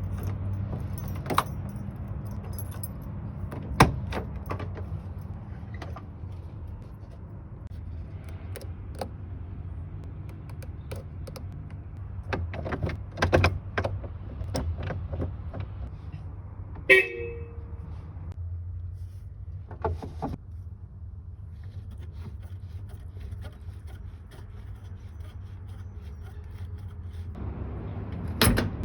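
Mercedes-Benz 190 (W110) idling steadily, with scattered clicks and knocks over it and a brief horn toot about 17 seconds in.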